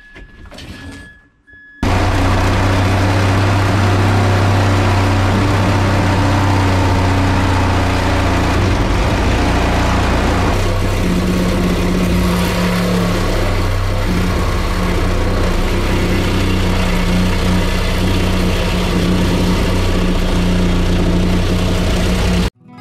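A loud engine running steadily, starting abruptly about two seconds in. Its low hum steps up in pitch about halfway through, and it cuts off suddenly near the end.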